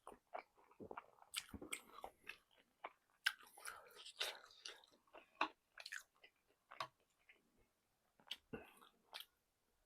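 A person chewing and biting food close to the microphone, with soft crunches; the chewing is dense through the first six seconds and thins out to a few scattered bites.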